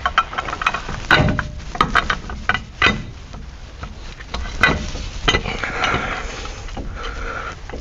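Irregular metallic knocks and clinks of tools and steel suspension parts being handled, several in the first three seconds, then quieter with a couple of single clinks.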